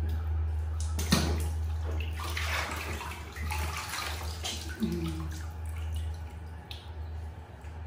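Water splashing and sloshing in a plastic bath basin as a baby monkey is bathed, busiest in the first half. A steady low hum runs underneath, and a brief low pitched sound comes about five seconds in.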